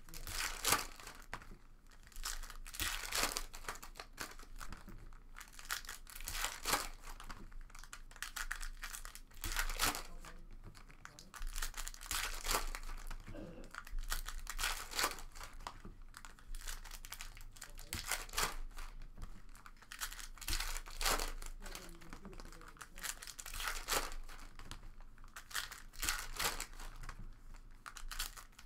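Foil trading-card pack wrappers crinkling and tearing as packs are ripped open and the cards handled, in irregular short rustles about every second or two.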